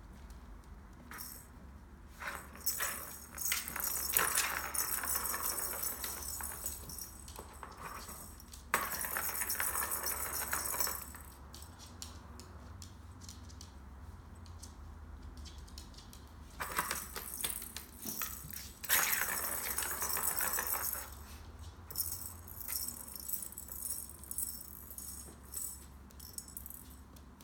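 Plastic ball rolling round the hollow track of a circular cat track toy, rattling in long spells as the dog pushes it along: one spell from about two to eleven seconds in, and more in the second half.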